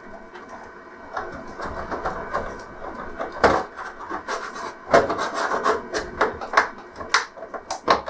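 Plastic pry tool scraping along the seam of a plastic LCD TV case, with several sharp clicks as the case's snap clips pop loose.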